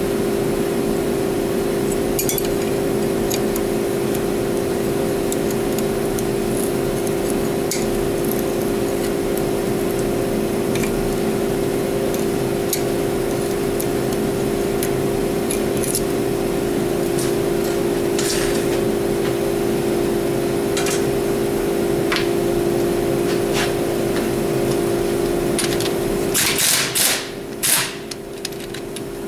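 Small metal clicks and taps of tools working at a Jeep tie rod end's nut over a steady shop hum, then near the end two short, loud bursts of a power wrench on a socket extension spinning the nut loose.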